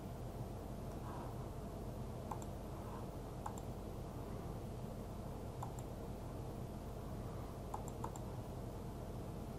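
Computer mouse clicking: a few sharp, scattered clicks, two in quick succession near the end, over a steady low hum of room noise.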